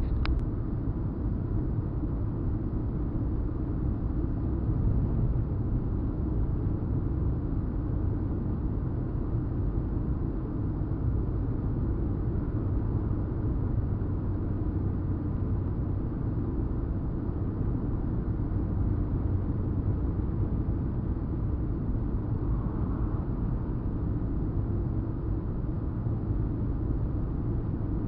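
Steady road and engine noise inside a moving car's cabin: an even low rumble as the car drives on.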